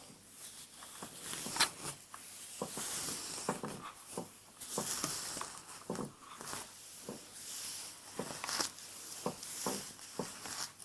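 Close-up ASMR hair sounds: hair being worked through and rustled near the microphone, an airy rustle with many small irregular crackles and clicks.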